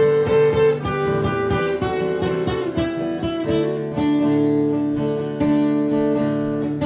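Acoustic guitar playing the instrumental intro of a country song: strummed chords under a melody of held notes that step from one pitch to the next.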